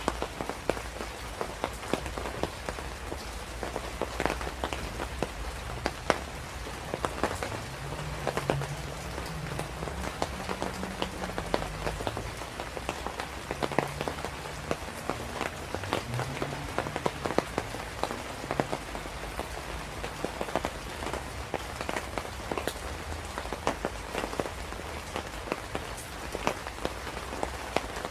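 Steady rain with many individual drops ticking on a surface, over a low steady rumble.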